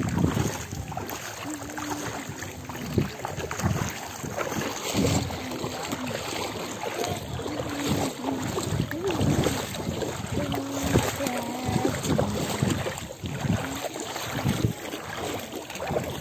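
Steady outdoor wind and floodwater noise buffeting the microphone, with faint distant voices now and then.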